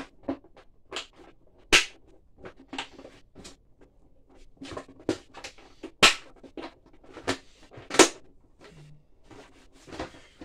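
Hard plastic pet carrier sections being pressed and fitted together: a run of irregular plastic knocks and clicks, the sharpest about two, six and eight seconds in.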